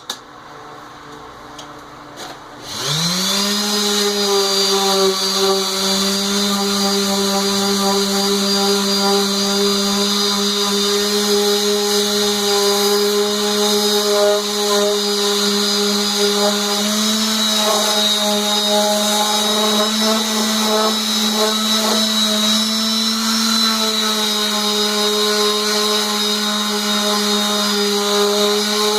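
A power tool's electric motor starts about two and a half seconds in, quickly spinning up to a steady hum, and runs on with slight shifts in pitch and level.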